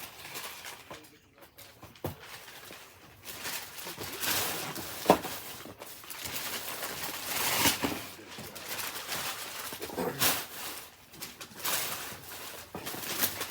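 Wrapping paper rustling and tearing in repeated bursts as presents are unwrapped, with one sharp click or knock about five seconds in.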